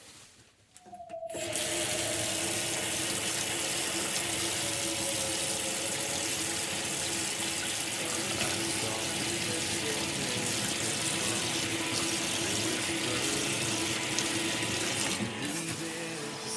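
Water running steadily from a shower/tub faucet into a bathtub after the valve is turned on, with a short falling whine about a second in as the flow starts and a steady hum underneath.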